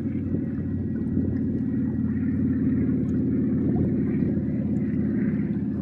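Boat engine running steadily with a low drone, growing a little louder over the first couple of seconds.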